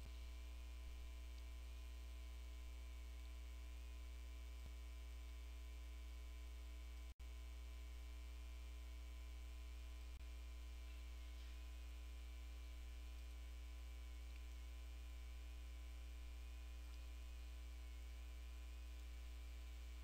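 Steady electrical mains hum with its overtones, which drops out for an instant about seven seconds in.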